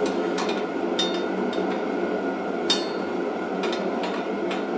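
Light metal clinks and taps from a steel trencher blade and its nut being worked onto a lawn edger's spindle by hand, about eight short ringing clicks with one louder clink a little past the middle, over a steady background drone.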